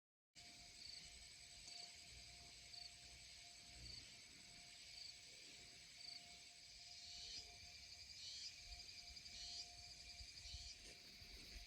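Faint outdoor wildlife ambience: a steady insect drone with a short high chirp repeating about once a second, joined by a few louder calls in the second half.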